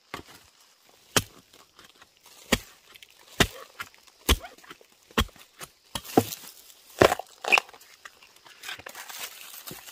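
Repeated chopping strikes of a blade into wood or plant stems, about one a second, with cracking and tearing between the blows after about six seconds.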